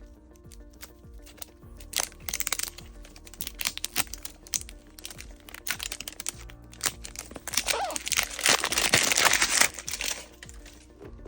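Plastic blind-bag wrapper being handled, crinkling and crackling in several bursts, the longest and loudest near the end, with sharp clicks in between. Quiet background music plays underneath.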